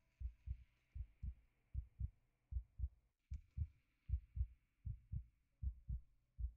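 Heartbeat sound effect: steady lub-dub double thumps at a resting pace of about 77 beats a minute.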